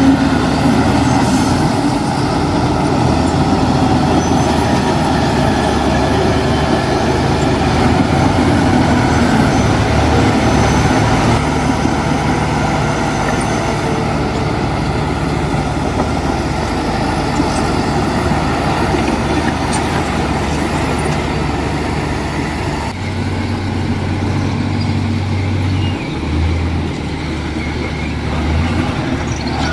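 Heavy diesel earthmoving machinery running steadily under load, with a continuous low engine drone and mechanical noise. About 23 seconds in the higher clatter eases and the low engine tone comes forward.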